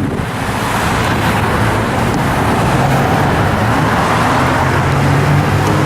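Steady freeway traffic noise: cars passing at speed, a continuous roar of tyres and engines. Near the end a low engine hum grows louder.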